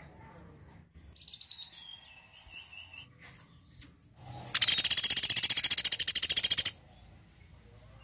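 Small barred woodpecker calling: a few soft, high, falling notes about a second in, then a loud rapid trill of sharp high notes lasting about two and a half seconds.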